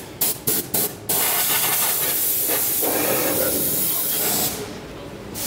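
Compressed-air blow gun hissing: a few short blasts, then one steady blast of about three and a half seconds that stops shortly before the end. It is blowing water out of a VW Golf IV's plenum under the windscreen cowl to dry it.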